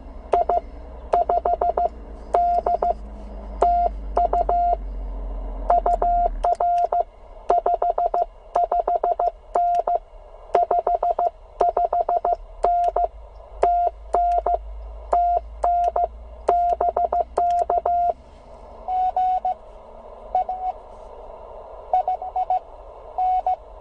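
Morse code (CW) tones from an HF transceiver, a single steady note keyed in dots and dashes at an even speed, with a sharp click at the start and end of each element. About 18 seconds in, the strong keyed note stops and a fainter CW signal at a slightly different pitch comes through the receiver hiss.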